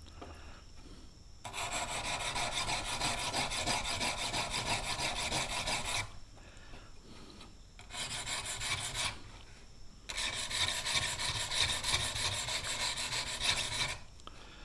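Steel broadhead blade being stroked along a sharpening stone, giving a scraping rasp. It comes in three spells: about four and a half seconds, then a short, fainter one, then about four seconds.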